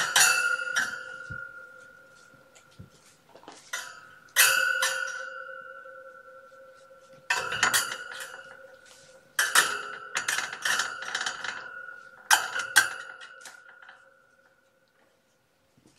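A metal object knocked and rattled in about five bouts. Each time it rings on with a steady two-pitched tone that fades over a few seconds, then dies away near the end.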